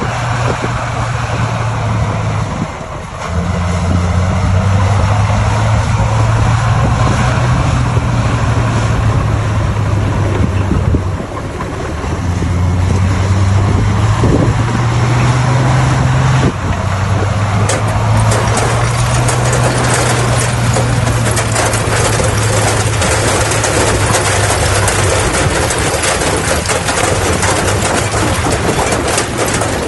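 Bulldozer diesel engine running under working load, its pitch dipping and rising several times as the load changes. From about halfway through, a dense rattling clatter joins the engine.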